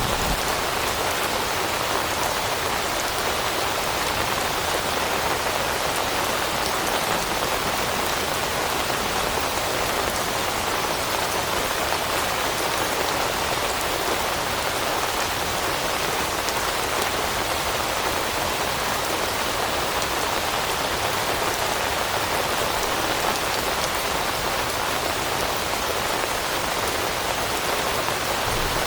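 Steady rain falling on leaves, an even hiss of many raindrops with no let-up.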